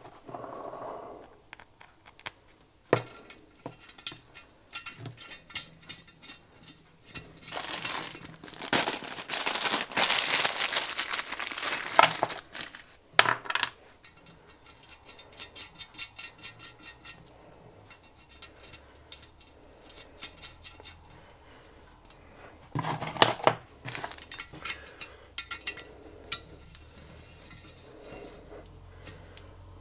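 Small steel studs, nuts and a spanner clinking and scraping against a cast-iron casing as the studs are wound in with check nuts: scattered sharp metal clicks, with a longer spell of dense rattling about a third of the way in and another short cluster near the end.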